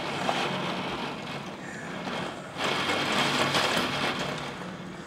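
Thunderstorm wind and heavy rain rushing, with a stronger gust swelling about two and a half seconds in and easing off after a second or so.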